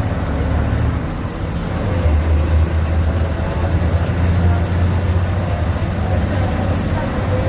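MWM MaxxForce 7.12 TCE six-cylinder inline turbodiesel of an Agrale MA 17.0 bus running under way, heard on board. Its level dips briefly about a second in, then it pulls again with a stronger, lower drone.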